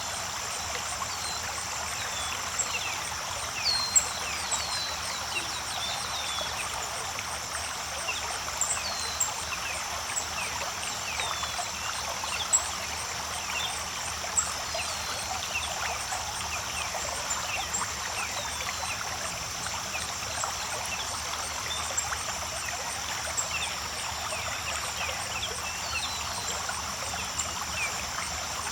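A creek running and trickling over rocks, with many small plinks and splashes over a steady rush of water and a constant high-pitched hiss above it.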